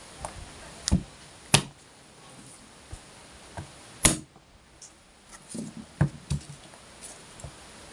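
Kitchen knife and hands knocking on a cutting board while garlic cloves are crushed under the flat of the blade and peeled: about five sharp, irregularly spaced knocks, the loudest about a second and a half and about four seconds in.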